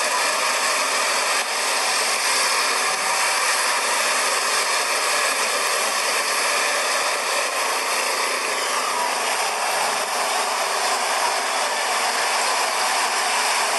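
Street traffic dominated by motor scooters passing close by, a steady mechanical engine noise without pauses.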